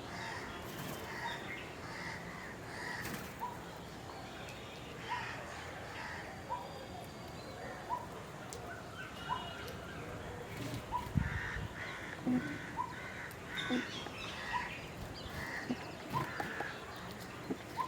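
Several wild birds calling: one bird repeats a short, clipped note about once a second, while louder, rougher calls come in a cluster in the second half.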